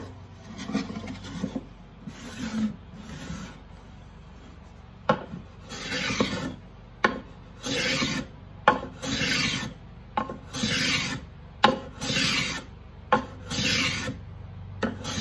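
Small wooden box plane stroked by hand across the edges of a padauk box, flushing out slight misalignments. Light strokes at first, then from about five seconds in a steady run of strokes about one a second, each a sharp tick followed by a short rasping scrape.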